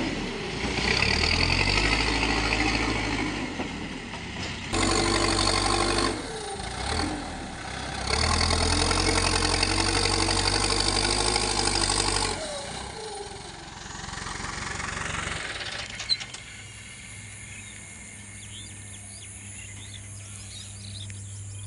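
Backhoe loader's diesel engine working, its revs rising in loud surges and easing back several times. After about twelve seconds it drops away to a quieter low steady hum, with one sharp click a few seconds later and faint insect chirps.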